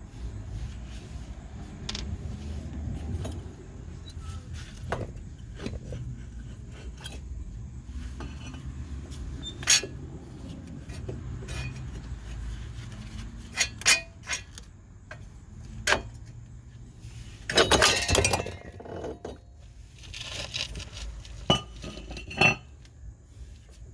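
Metal hand tools clinking and clanking in scattered, separate knocks, with a short cluster of louder clanks about three quarters of the way through, over a steady low rumble.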